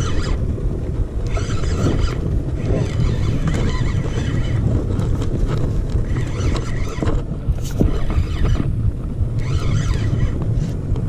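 Spinning reel being cranked in spurts of about a second each, its gears whirring while a hooked fish is reeled in. Underneath is the steady drone of the boat's motor and wind on the microphone.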